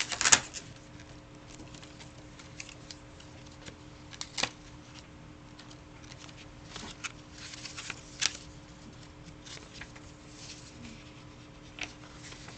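Paper handling: a picture book's pages rustling and clicking as they are fumbled and turned, in scattered short bursts, the sharpest about a third of a second in, with a faint steady hum underneath.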